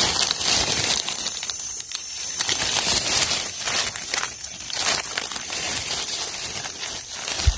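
Dry fallen leaves crackling and rustling as a hand digs through leaf litter to pull up mushrooms, in many small irregular crackles, with a dull low bump near the end.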